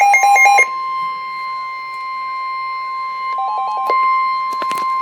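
Emergency alert tones: a rapid alternating beep pattern for about half a second, then the steady single-pitch warning alarm tone of about 1050 Hz used on NOAA Weather Radio. A short run of quick beeps sounds over it about three seconds in, and a few sharp clicks come near the end.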